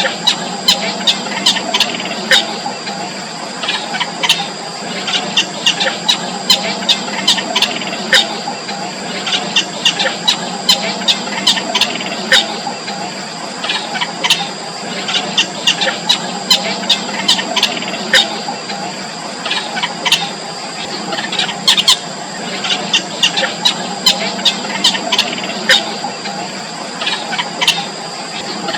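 Yellow bittern nestlings calling in the nest: a continuous stream of short, sharp, squeaky calls, the begging of chicks being fed. Two steady high-pitched tones hum underneath.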